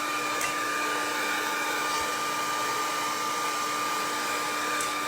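A small electric motor running steadily, with an even rushing hiss and a steady whine over it.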